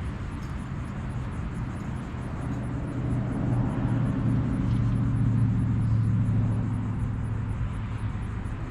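A motor vehicle passing by: a low engine rumble that swells over a few seconds, is loudest near the middle, then fades away.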